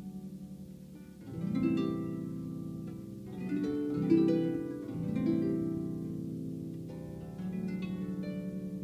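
Harp played slowly and softly: plucked chords and single notes left to ring and overlap, mostly in the lower-middle range, with the strongest pluck about four seconds in.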